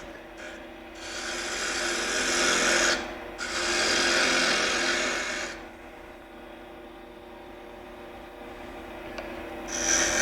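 Turning tool cutting a spinning poplar block on a wood lathe, reducing its diameter: two long passes of shaving noise, about a second in and from three and a half to five and a half seconds, then the lathe motor running alone with a steady hum, and a brief cut again near the end.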